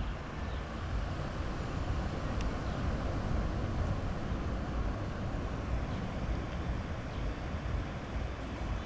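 Sea surf washing onto a beach: a steady rush of waves with a deep low rumble underneath.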